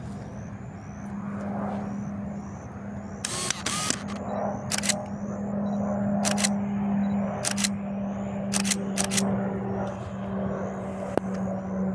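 A camera shutter firing in single shots, about seven clicks at uneven intervals, over a steady low drone.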